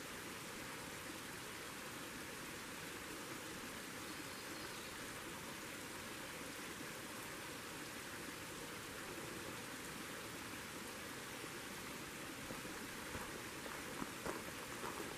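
Small creek running: a steady, even rush of water, with a few light clicks and knocks near the end.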